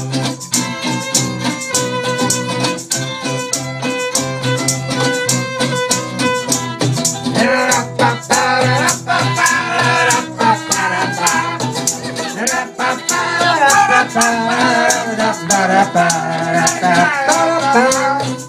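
Jug band playing an instrumental passage: fiddle over acoustic and resonator guitars, with a tambourine shaken on a steady beat. About halfway through, sliding, wavering lead notes take over from the steadier opening notes.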